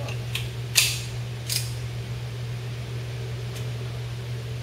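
Sharp metallic clacks from a Norinco .45 Commander pistol being handled: a light click, then two louder clacks about a second and a second and a half in. A steady low hum runs underneath.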